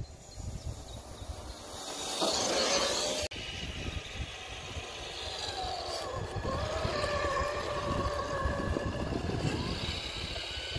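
Traxxas TRX-4 radio-controlled crawler's electric motor and gearbox whining as it drives, the pitch rising about five seconds in and then holding steady. A low rumble runs throughout, with a loud rush of noise about two seconds in that cuts off abruptly.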